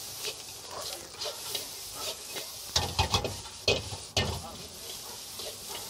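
Fried rice sizzling in a wok over a gas burner while a metal spatula stirs and tosses it. Sharp scrapes and clanks of the spatula against the wok come every second or so, thickest around the middle.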